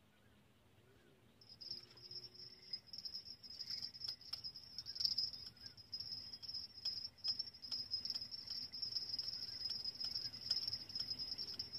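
High, steady insect trill that comes in about a second and a half in and carries on, pulsing in loudness, with faint scattered clicks over it.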